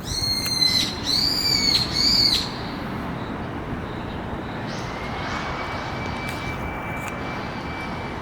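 A bird calling three times in quick succession, each call high and arching up then down in pitch, followed by a faint thin steady tone over outdoor background noise.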